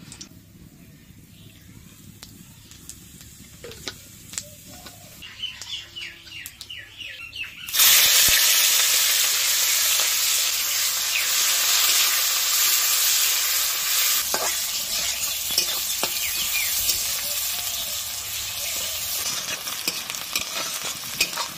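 Sliced onion dropped into hot oil in a karahi, setting off a loud sizzle about eight seconds in that carries on steadily while it is stirred with a spatula, the spatula clicking against the pan. Before the onion goes in, only the whole spices frying faintly and a few light clicks.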